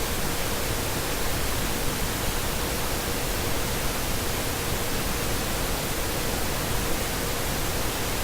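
Steady, even hiss with a faint steady tone underneath; no other sound stands out.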